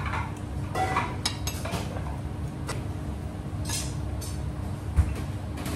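Cutlery clinking and scraping against a plate in a few short, scattered clicks as a dish is cut and eaten, over a steady low hum. A dull thump about five seconds in.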